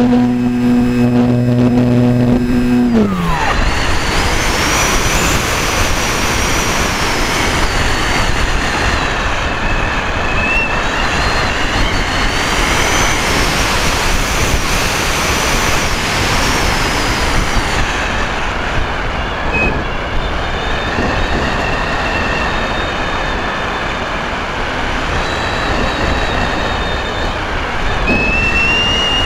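Air rushing over a model aircraft in flight, with its motor and propeller tone. The steady propeller tone drops away sharply about three seconds in, leaving mostly wind noise with a faint high whine that wavers up and down and rises again near the end.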